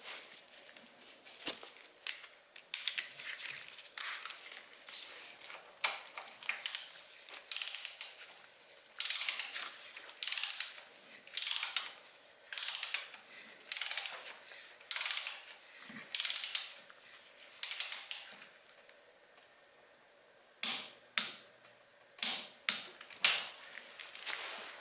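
Hand ratchet clicking in repeated short strokes, about one a second, as it turns a hex socket to run the plug below the oil mesh filter back into a Ducati SuperSport S crankcase. The strokes stop for about a second and a half near the end, then start again.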